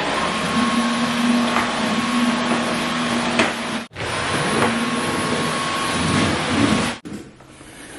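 Cordless stick vacuum cleaner running, a steady motor rush with a hum and a whine. It cuts off abruptly twice, about four and seven seconds in, and is quieter after the second break.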